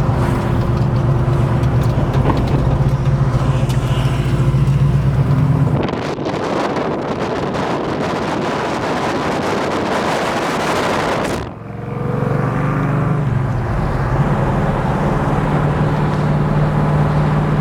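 The 1967 Chevelle's 396 big-block V8 running through Flowmaster dual exhaust, a steady low engine drone. About six seconds in it gives way to a loud rushing noise for several seconds. Then the engine comes back, its pitch rising briefly as it pulls again.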